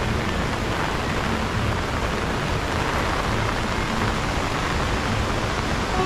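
Steady hiss of heavy monsoon rain, even and unbroken throughout.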